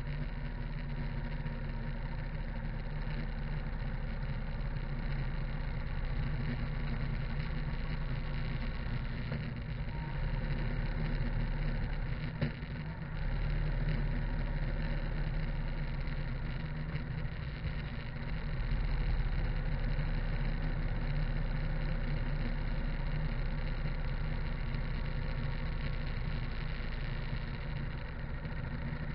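Harley-Davidson V-twin engine running steadily while the motorcycle cruises along the road, with wind and tyre noise. The sound dips briefly twice near the middle and then picks up a little louder.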